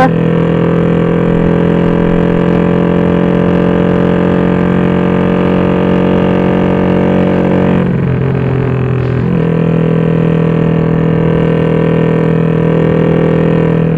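Honda XRM fi motorcycle's single-cylinder four-stroke engine, bored to 62 mm and running on an RS150 ECU's map 8, droning steadily under way, heard from on board. About eight seconds in the engine note dips briefly, then returns to its steady pitch.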